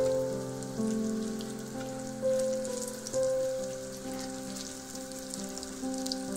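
Breaded zucchini rounds sizzling and crackling in hot oil in a frying pan, under background music with held notes.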